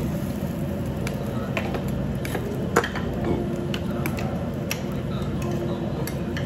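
Chopsticks clicking and tapping against dishes while food is picked up, with one sharper clack nearly three seconds in, over a steady low restaurant hum.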